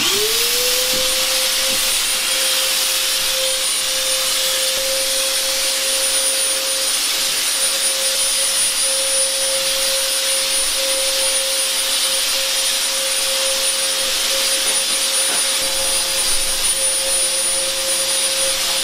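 Electric cold fogger's motor starting up, its pitch rising briefly at the start, then running steadily with an even rushing hiss of air and a steady hum.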